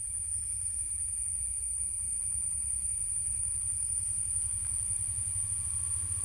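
A steady low rumble under a continuous high-pitched cricket drone.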